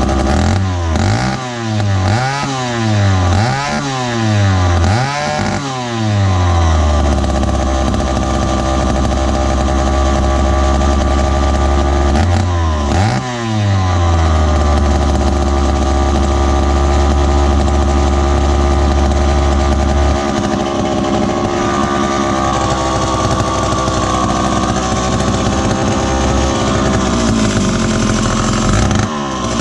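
Lancaster 40IL (Dayton 2Z383) chainsaw's two-stroke engine running, revved up and back down four times in quick succession in the first few seconds and once more about halfway through, otherwise running steadily.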